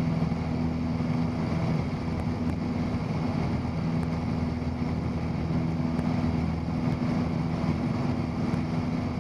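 Cessna 172's piston engine and propeller droning steadily at climb power, heard from inside the cabin.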